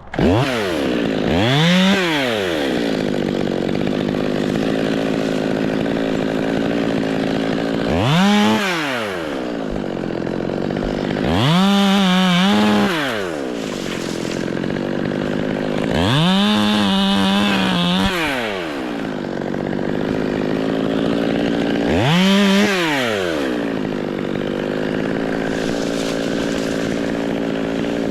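Two-stroke chainsaw revved up five times, held at full throttle for a second or two each time, then dropping back to a fast idle in between.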